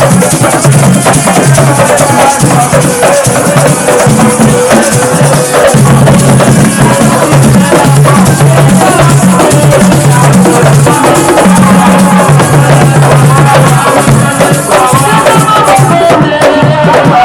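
Loud music with a stepping bass line, drums and shaker-like percussion under a wavering melody.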